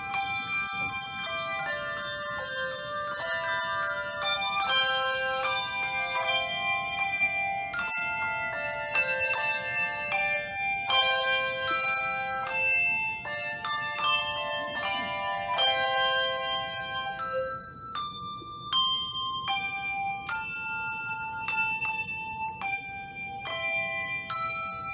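A handbell choir playing on brass handbells together with handchimes: many struck notes ringing on and overlapping in chords and melody. In the last third the lower notes drop out and fewer, higher notes sound.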